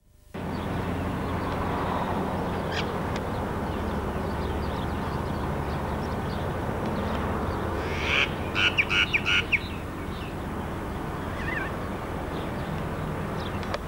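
Steady hum and rush of an old electric suburban train set standing at a platform. About eight seconds in, a run of about six quick, high-pitched calls cuts through, with a single faint chirp a few seconds before and after.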